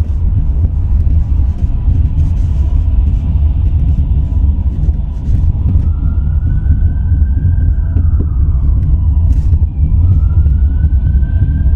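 Steady low rumble of a car driving on city streets, heard inside the cabin. About halfway through, a faint siren wails twice, its pitch rising slowly and then falling.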